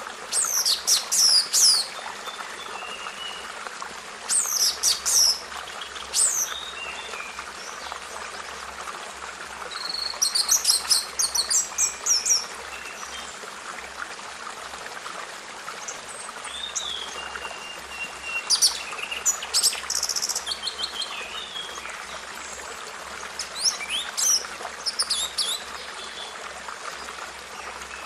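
A songbird singing in short, quick phrases of high chirps, about six phrases spaced a few seconds apart, over the steady rush of running water.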